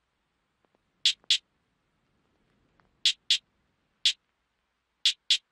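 Sparse, sharp high-pitched clicks from the intro's sound design, over near silence: a pair about a quarter second apart at about one, three and five seconds in, and a single click a little after four seconds.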